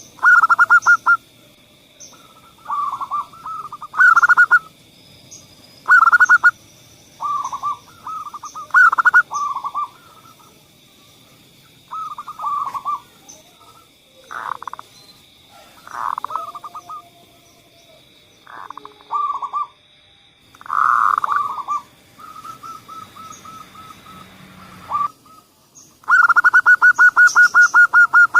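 Zebra dove (perkutut) cooing: short phrases of rapid trilled coos, repeated every second or two with brief pauses. A faint steady high whine runs underneath and stops near the end.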